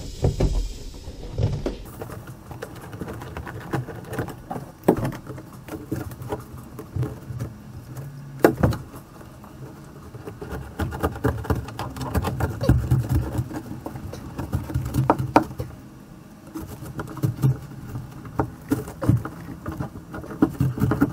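Old boat carpet and crumbly expanding foam being pulled out and handled: irregular rustling, scraping and crackling with scattered sharp knocks.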